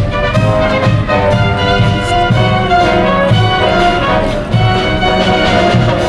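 Background music: an orchestral piece with brass.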